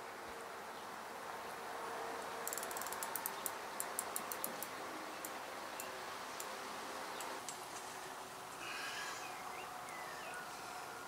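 Carp reel's free-spool clutch ticking as line is pulled off: a quick run of ticks about two and a half seconds in that slows and thins out over the next few seconds, with a few single ticks after.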